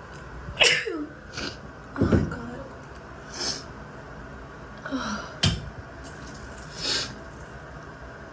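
A woman sneezing again and again in an allergic sneezing fit set off by a strongly scented body wash: three sharp sneezes with sniffs and breaths between them.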